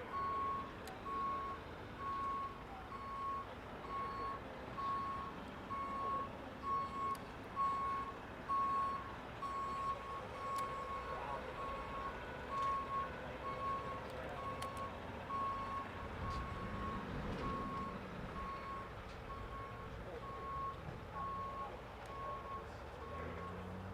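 Vehicle backup alarm beeping: a single high tone repeated at even intervals, over faint background noise.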